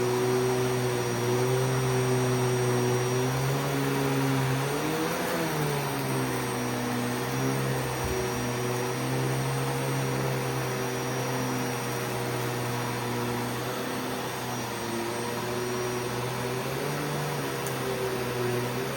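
Vacuum cleaner running steadily with a droning hum. Its pitch wavers briefly about five seconds in and again near the end.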